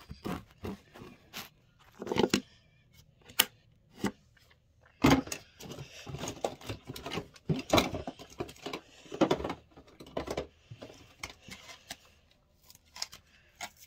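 Handling noise: irregular clicks, knocks and rustles as small makeup items and the handheld phone are moved about, with a few stronger thuds.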